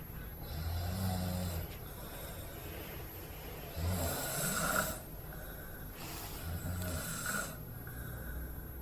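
A man snoring in his sleep: rough, low snores with noisy breaths between them, repeating every couple of seconds.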